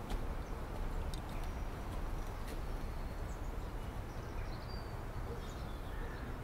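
Outdoor ambience: a steady low rumble and hiss, with small birds chirping here and there and a few faint clicks.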